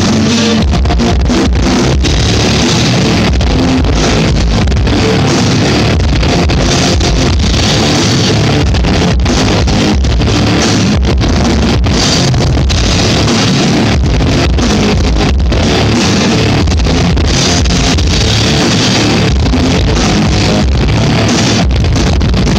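A rock band playing live, loud and steady, with electric guitar and drums, as heard from the audience.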